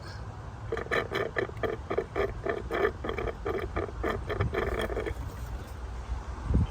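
Water and air being sucked up through a thin hose out of a flooded spark plug well, gurgling in quick pulses about five times a second for around four seconds and then stopping. The water pooled in the plug well is the cause of the misfire that shows up when it rains.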